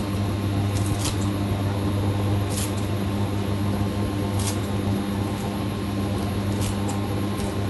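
Steady low electrical hum, with a few short light clicks and rustles of handling scattered through it.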